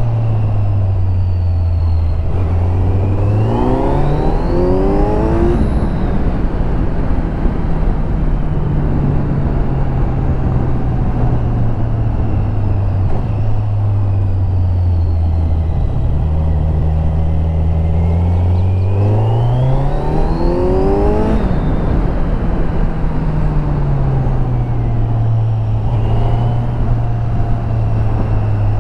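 Kawasaki Z900's inline-four engine on its stock exhaust, under way: it rises in revs twice, about four seconds in and again about twenty seconds in, and between those it holds a steady drone or drops back as the throttle eases.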